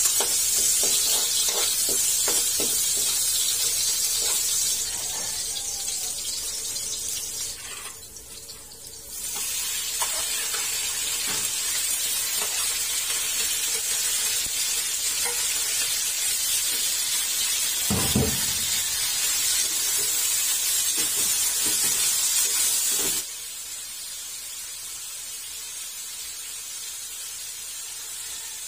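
Chopped garlic and onion sizzling in hot oil in a wok, with a metal ladle clicking and scraping against the pan during stirring. A single dull thump comes about two-thirds of the way through. Near the end the sizzle steps down to a quieter, steady hiss.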